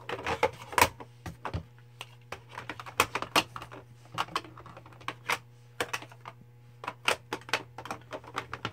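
Plastic makeup palettes being handled: irregular clicks and taps as compacts are opened, snapped shut and set down, over a faint steady hum.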